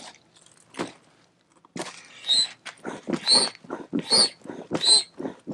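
Air pump inflating an inflatable kayak seat with steady, wheezing pump strokes, about one every 0.8 s, beginning a couple of seconds in.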